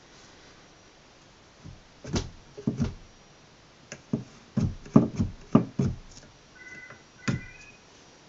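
JML Iron Gym doorway pull-up bar knocking and rattling against the door frame as a hand grips and shifts it: a string of irregular thumps and clicks, the loudest and quickest in the middle.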